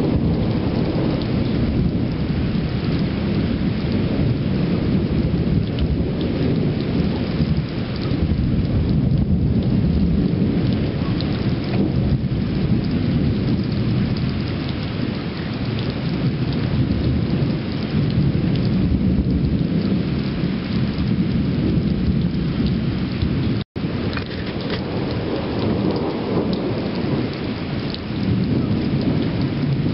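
Steady rain with continuous low rumbling thunder that swells and eases. A split-second dropout in the sound comes about two-thirds of the way through.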